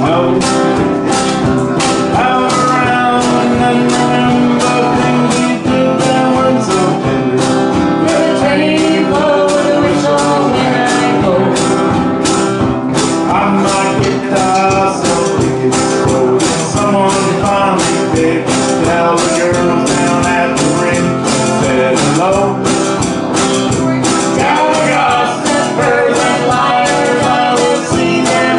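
Live country-folk band playing: strummed acoustic guitar and banjo over a steady drum beat, with harmonica and a woman singing.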